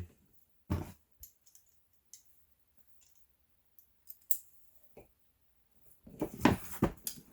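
Small metal rivets being handled and sorted by hand: a few scattered light clicks, then a denser stretch of clicking and rattling near the end.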